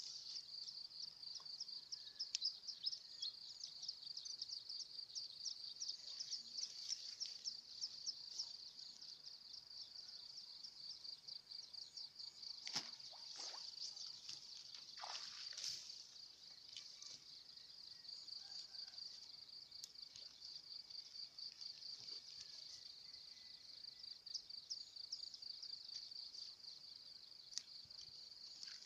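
Faint chorus of insects trilling steadily in a high, rapidly pulsing buzz, with two brief louder sounds near the middle.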